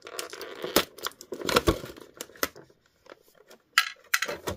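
Thin clear plastic packaging crinkling and crackling as hands work an action figure free of it, full of small sharp clicks. It goes quieter past the middle, then a few loud plastic clicks come near the end.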